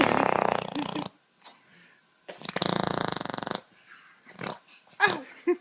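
A raspberry blown with the lips, a buzzing farting noise, made twice, each about a second long.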